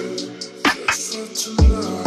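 Background music with a steady beat: deep kick-drum thumps about twice a second under sustained chords and crisp higher percussion.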